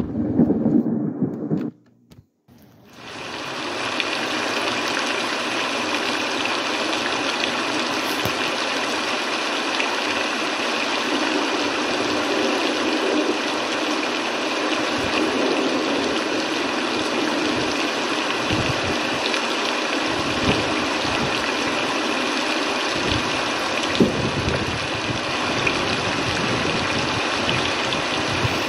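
Sea water washing against the rocky shore: a steady rushing hiss, which starts after a brief drop-out about two seconds in.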